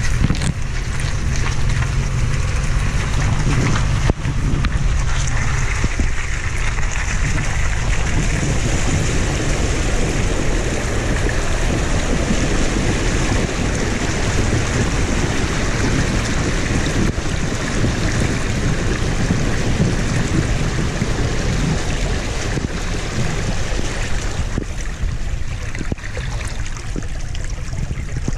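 Water rushing and splashing around the front wheel and along the body side of an off-road SUV wading through a ford, starting a few seconds in, over a steady low rumble of wind on the microphone.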